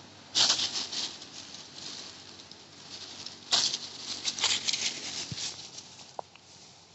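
Irregular rustling and crackling patter, loudest in a burst about half a second in and another about three and a half seconds in.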